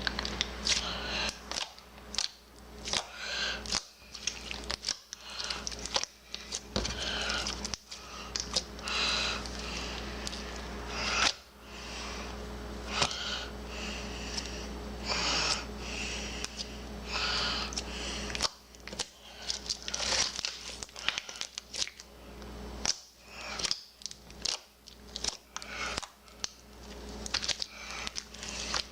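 Homemade slime being squeezed and stretched by hand, giving irregular wet clicks, pops and crackles, over a steady low electrical hum.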